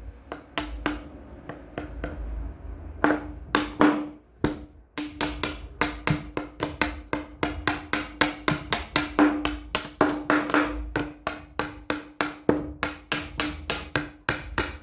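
Small hammer knocking repeatedly on a hard object, each strike a short wooden knock with a faint ringing tone. A few spaced strikes at first, then a steady run of about three to four strikes a second from about five seconds in.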